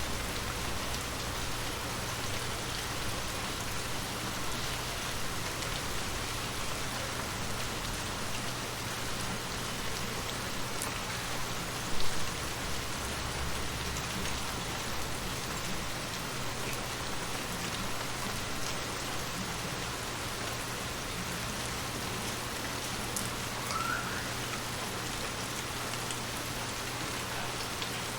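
Steady rain falling, with one brief, louder sharp hit about twelve seconds in.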